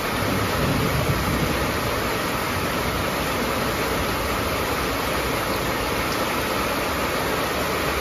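Steady heavy rain falling on a corrugated metal sheet roof, an even drumming hiss.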